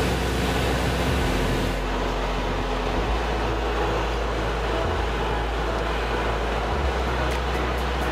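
Steady cabin noise of a light propeller aircraft on final approach: engine and airflow running together, with a steady hum.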